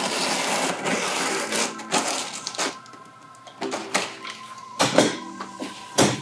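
Box cutter slicing through a cardboard carton along its seam: a steady rasping scrape for about the first two and a half seconds, then several sharp knocks and taps as the box is handled.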